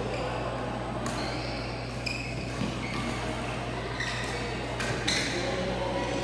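Badminton rally: several sharp racket hits on a shuttlecock, a second or more apart, with short high squeaks of court shoes on the floor between them. A steady low hum runs underneath.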